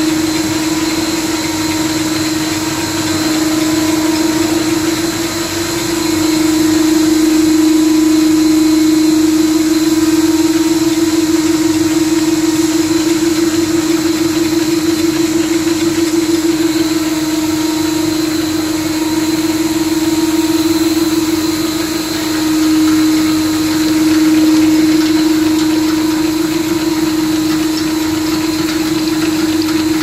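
Rotary three-layer detergent tablet press running steadily: a loud, even machine hum with one strong steady tone and a fine, fast ripple in it.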